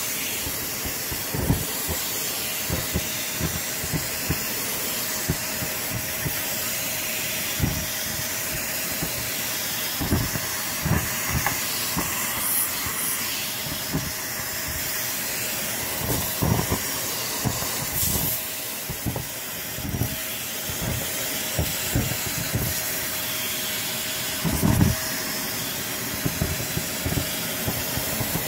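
Dyson vacuum running with its bare wand on carpet: a steady rushing hiss with a faint steady tone under it. Irregular short knocks and crackles come through it in clusters as clumps of lint, fluff and grit are sucked up the wand.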